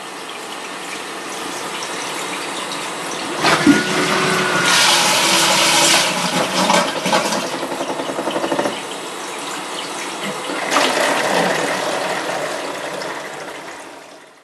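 TOTO Neorest AH1 tankless toilet flushing, with water rushing in surges. About three and a half seconds in it gets suddenly louder with a brief whining tone, and a pulsing noise follows for about two seconds. This is the abnormal noise that comes just after the flush, which was cured by replacing the toilet's built-in tank.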